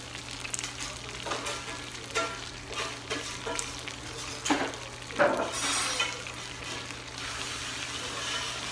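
Sechiyaki sizzling on a hot teppan griddle, with a few short metal scrapes and clinks of a utensil against the iron, the loudest about five seconds in.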